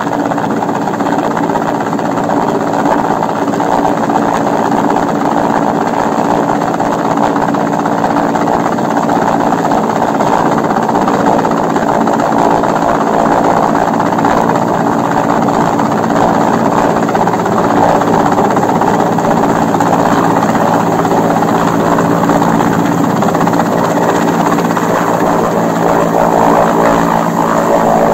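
Mi-8 helicopter's twin turboshaft engines and main rotor running steadily and loudly as it descends and hovers low to land, a dense rushing noise with a steady hum of several tones beneath it.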